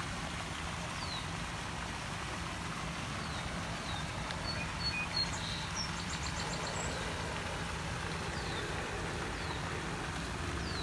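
Steady splashing hiss of a pond's spray fountain with a low hum underneath, and short high bird chirps every second or two, including a brief quick trill near the middle.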